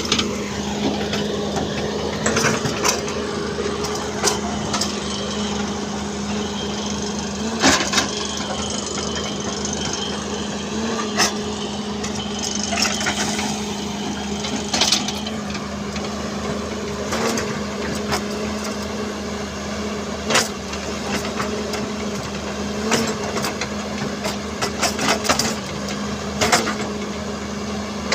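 A machine's engine running steadily, with sharp knocks and clanks every few seconds.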